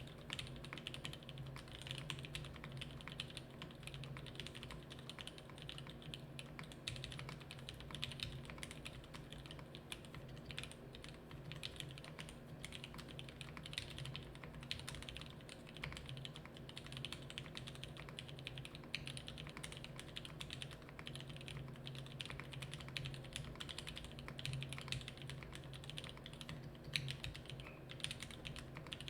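Continuous typing on a custom mechanical keyboard with lubed Gateron Yellow linear switches, an FR4 plate and foam-dampened case, and dye-sub keycaps: a steady stream of irregular keystrokes.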